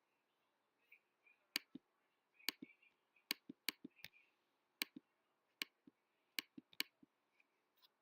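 Near silence broken by more than a dozen short, sharp clicks at irregular spacing, several a second at times.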